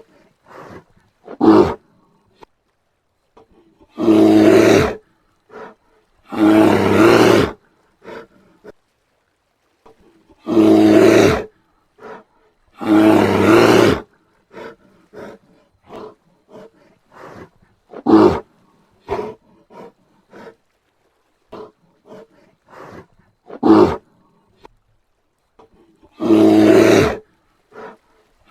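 Brown bear roaring: long, deep roars about a second each, mostly in pairs a couple of seconds apart, with short, sharp calls in between.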